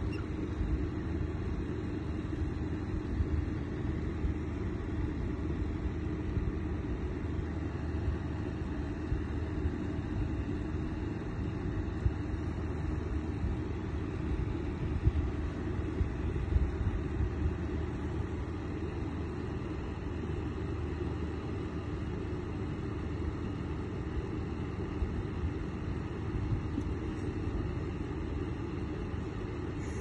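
Electric fan heater running close by, a steady low rumble of blowing air with no change in speed, with a few light knocks from handling.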